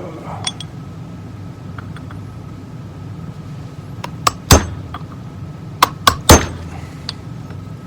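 Hammer striking a punch to drive a steel check ball into its hole in the 4L65E transmission's aluminum casting. There are a few light tool clicks, then five sharp metallic hits: two in quick succession about four seconds in, and three more about a second and a half later.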